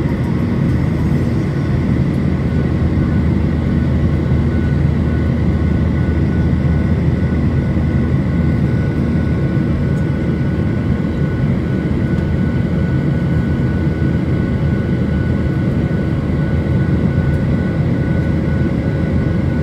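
Steady cabin noise of a Boeing jet airliner climbing after take-off: the engines and rushing air make a constant low drone, with a faint steady whine above it.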